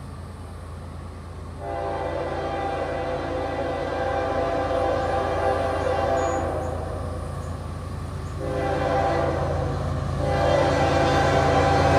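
Diesel locomotive horn on an approaching train: a long chord blast starting about a second and a half in, then further blasts from about eight and a half and ten seconds, growing louder as the train nears, over a low steady rumble.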